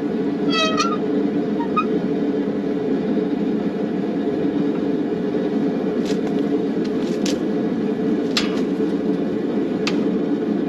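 Gas forge burner running with a steady, loud rush. A few short, sharp clicks come through it in the second half.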